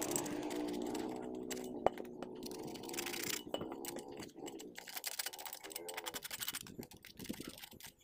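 Quick irregular clicks and light metallic knocks as a gloved hand handles an old tractor's belt pulley. A low hum with several steady tones fades away over the first three seconds.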